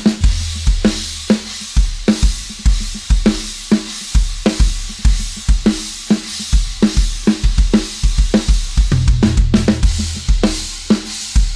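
Drum kit playing a steady rock-style beat: kick drum, snare and cymbals, with a sustained bass line underneath.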